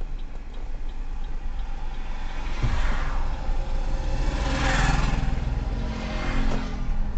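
Vehicle driving on a road, heard with a steady low rumble of engine and road noise. A broad whooshing swell of noise builds from about two and a half seconds in, peaks about five seconds in, then fades. Faint regular ticks, about three a second, die away in the first second.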